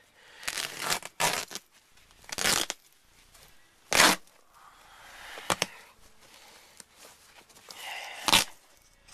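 Old car floor carpet being torn and pulled up, in several separate ripping bursts with a sharp crack about four seconds in.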